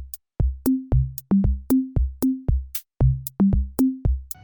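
Electronic background music: a drum-machine beat of deep kick drums and short low synth bass notes, with crisp high hi-hat ticks, at roughly three hits a second.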